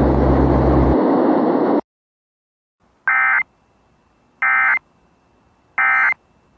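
A steady hiss with a low hum cuts off a little under two seconds in, followed by the Emergency Alert System's end-of-message signal: three identical short bursts of warbling digital SAME data tones, each about a third of a second long and about a second and a half apart, marking the end of the alert.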